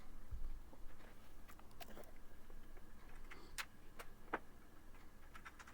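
Faint, scattered small clicks and taps of a cable being handled and tucked into place inside a computer case.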